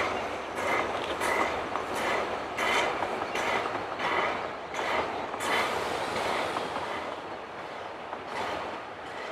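Narrow-gauge steam locomotive hauling a passenger train, its exhaust beating at about one and a half chuffs a second. The beats fade from about two-thirds of the way in as the train draws away.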